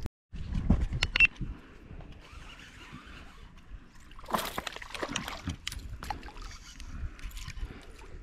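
Water splashing and sloshing around a kayak, with a few sharp knocks and clicks, the loudest just over a second in, and a louder splash about four and a half seconds in.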